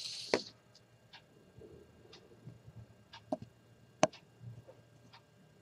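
A few faint, scattered clicks and taps from handling a fine paintbrush and the work surface during nail painting, with a brief rustle at the start.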